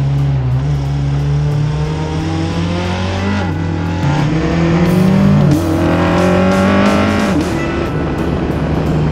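BAC Mono race car's engine under hard acceleration, climbing in pitch and dropping sharply at quick upshifts of its pneumatic gearshift, twice in the second half. It plays under background music.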